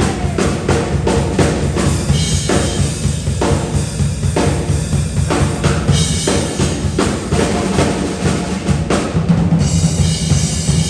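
Band playing with the drum kit to the fore: kick and snare keeping a steady beat over low bass notes.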